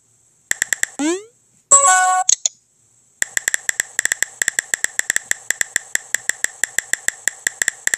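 Texting-app sound effects: a few phone-keyboard typing clicks, a short rising whoosh about a second in, and a brief multi-note message alert chime around two seconds in. After a short pause, a fast run of keyboard typing clicks, about nine a second, goes on to the end.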